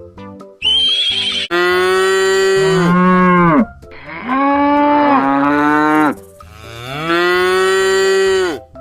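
Cow mooing: three long moos of about two seconds each, every one falling in pitch at its end. A short high-pitched tone comes just before the first moo.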